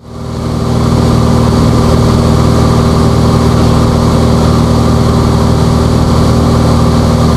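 Cessna 182's engine and propeller running steadily in cruise flight, a constant drone with a few steady tones. It fades in over the first second.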